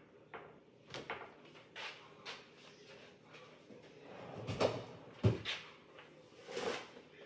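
Kitchen handling noises: scattered short knocks and clatters of dishes and cookware being moved about on the counter and stove, the loudest a cluster of thuds about halfway through and another knock near the end.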